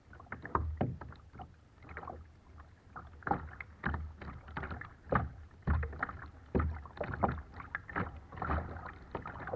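Kayak paddle strokes: irregular splashes and drips of water, some with a low thump of water slapping a hull close by.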